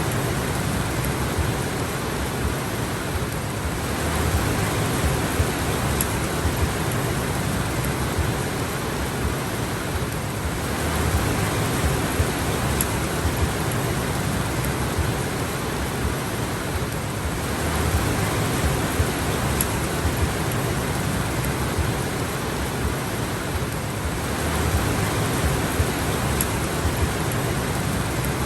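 Steady heavy rain falling, a dense even hiss with a low rumble, swelling slightly every six or seven seconds.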